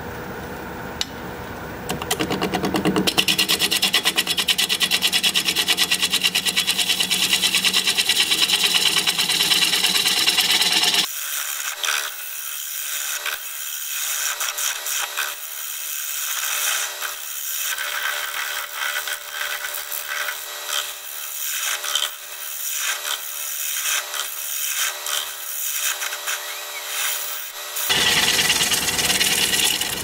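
Bowl gouge cutting into a spinning juniper bowl blank on a wood lathe. A loud, steady scraping cut runs from about three seconds in, turns into lighter, pulsing strokes about eleven seconds in, and grows loud again near the end.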